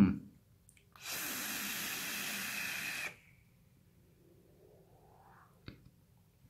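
A person vaping through a rebuildable dripping atomizer on a box mod: a steady, breathy hiss lasting about two seconds as a big vapour cloud is drawn and blown out. There is a brief hum of voice at the very start and a faint click near the end.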